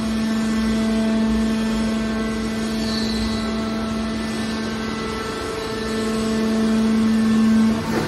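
Hydraulic scrap-metal baler running with a steady low hum from its hydraulic pump and motor as the ram pushes a compressed bale of scrap wire out. The hum swells over the last couple of seconds, then drops off abruptly near the end.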